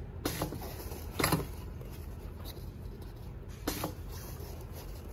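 Fabric being handled and smoothed under a sewing machine's presser foot: a few brief rustles and scrapes, the loudest about a second in, over a steady low hum.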